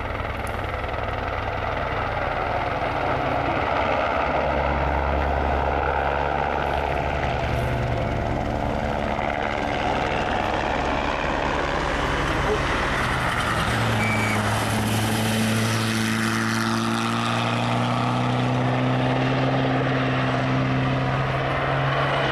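Rally car engines on a stage, then a helicopter flying low. From about two-thirds of the way in, a steady rotor and turbine hum that rises slightly in pitch.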